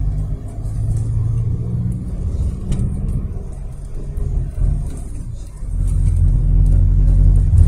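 Car engine and road noise heard from inside the cabin, a low steady rumble. It eases off shortly after the start and picks up again near the end as the engine pulls harder.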